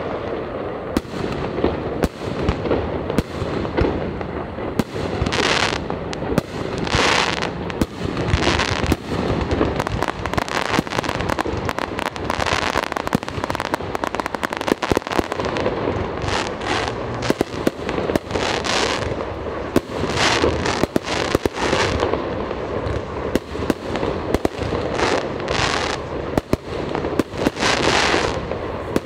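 Aerial fireworks display: a continuous run of bangs from bursting shells over a rolling rumble, with short hissing, crackling bursts every second or two.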